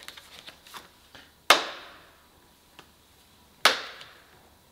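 Light clicks and taps of sheet metal being handled, then two hammer blows on a thin steel repair panel clamped in a vise, about two seconds apart, each ringing briefly. The blows are shaping a gentle bend into the panel.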